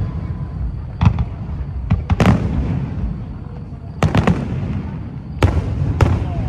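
Aerial fireworks shells bursting overhead: about seven sharp booms, some in quick pairs, each trailing off in a low rumble.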